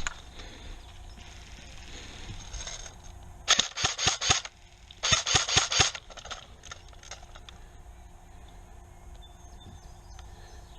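Airsoft electric gun (AEG) firing two short bursts of rapid shots, a bit under a second apart, with each burst lasting under a second.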